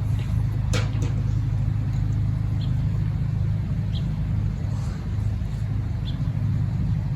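A steady low mechanical rumble, like an engine running, with a sharp click about a second in and a few short high chirps scattered through it.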